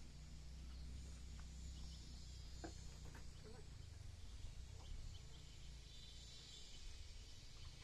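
Faint outdoor ambience: a steady high hiss of insects over a low hum, with a few faint scattered clicks.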